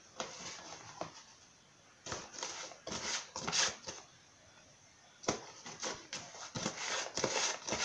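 Handling noises: rustling, scraping and a few light knocks as a pot of wheat flour and utensils are worked by hand. The sounds come in short clusters with two brief quiet gaps, and the sharpest knocks fall in the last few seconds.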